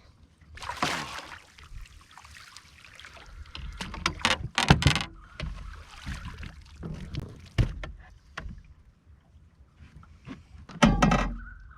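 A large hooked fish splashing and thrashing at the side of a small boat, with sharp knocks on the boat. There are several loud bursts, the loudest near the end.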